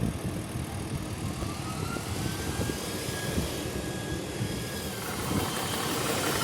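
Small high-pressure air compressor for filling a PCP air gun running, with a whine that rises in pitch as the motor spins up and then holds steady; the running noise grows louder near the end.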